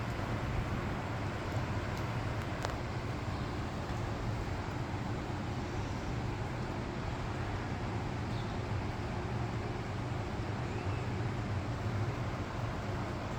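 Heavy thunderstorm rain falling steadily, a constant even rush of noise.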